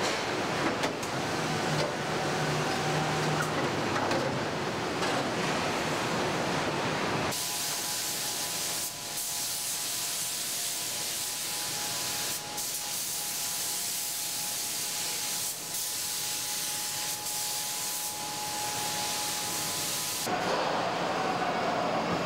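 Assembly-line clatter and hum, then for about 13 seconds a steady high hiss of a compressed-air spray gun in a paint booth, with a few steady hums under it; the line noise comes back near the end.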